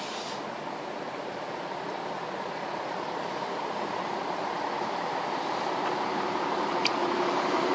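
Steady noise of a motor vehicle, slowly growing louder as it approaches, with one sharp click near the end.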